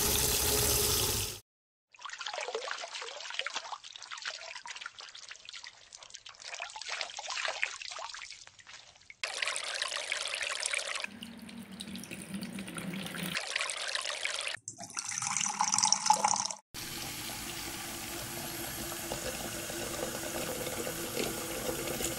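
Water running from a pull-down kitchen faucet's spray head and splashing, in a series of short clips that start and stop abruptly. The flow changes between a spray and a steady stream.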